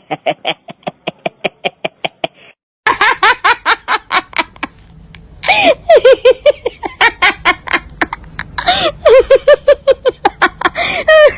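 People laughing hard in fast runs of repeated bursts, about five or six a second. Several laughing stretches follow one another, with a change of voice and sound quality about three seconds in and again about halfway through.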